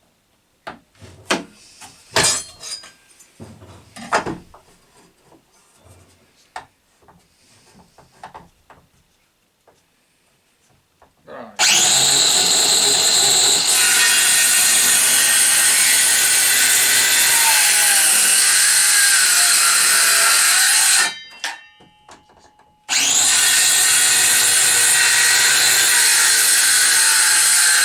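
A few knocks and clicks of wood and tools being handled, then a Parkside PHKSA 20-LI A2 20 V cordless circular saw starts and cuts through wood for about ten seconds. It stops, and after a short pause it starts and cuts again.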